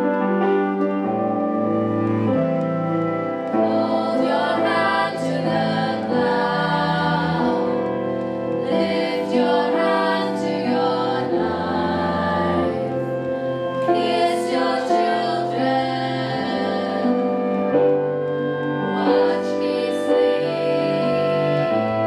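A live folk ensemble of cello, other strings, clarinets and keyboards playing held chords over a bass line that steps from note to note, with a group of voices singing in phrases.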